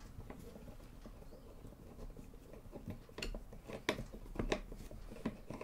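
Small Torx T9 screwdriver turning a screw out of a graphics card heatsink: faint scraping at first, then a few sharp metallic clicks in the second half.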